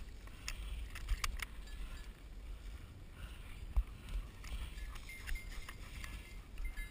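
Footsteps and rustling through tall dry grass over a low rumble, with a few sharp clicks about a second in and a single thump near the middle.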